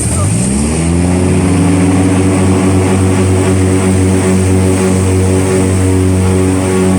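Airboat engine and air propeller accelerating. The pitch climbs quickly over the first second and a half, then holds at a steady, loud high-speed run.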